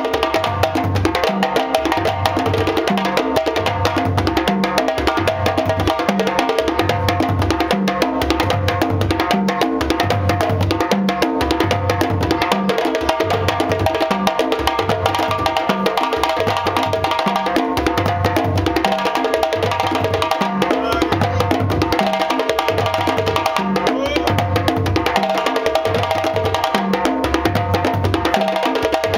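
West African drum ensemble: djembes slapped and struck with bare hands over tall dunun bass drums hit with sticks, playing a fast, steady rhythm with regular low bass strokes.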